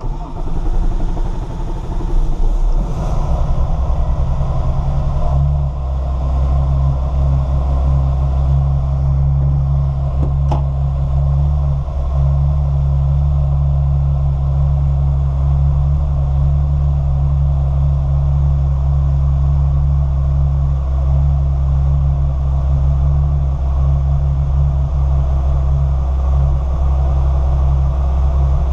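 Porsche 993's air-cooled 3.8-litre flat-six, on a freshly reflashed MoTeC ECU, starts and, after about three seconds of uneven running, settles into a steady idle.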